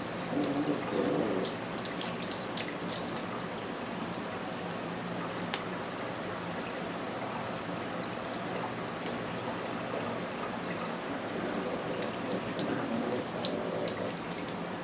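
Pull-down kitchen faucet running in spray mode into a sink, water splashing over bee balm sprigs as they are rinsed by hand, with a few small splashes and clicks.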